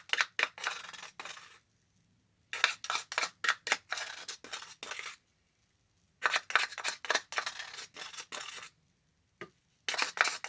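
A spoon scraping wet white Portland cement mix out of its container into a tile mold, in four bursts of quick scrapes and clicks with short pauses between them.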